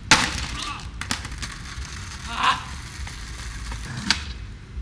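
Skateboard on concrete: a loud clack of the board hitting the ground just after the start, a lighter knock about a second in and a sharp click about four seconds in, over a low rumble of wheels rolling. A short shout comes in the middle.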